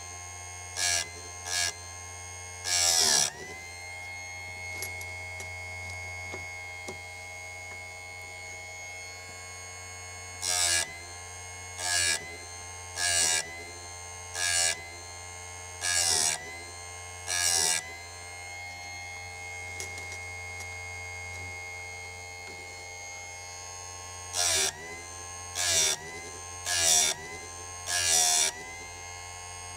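Sturm BG6060 electric chain sharpener running with a steady motor whine, its grinding wheel brought down on one saw-chain cutter tooth after another. Each tooth gives a brief, harsh grinding burst that pulls the motor's pitch down. There are three strokes near the start, six about every second and a half in the middle, and five more near the end.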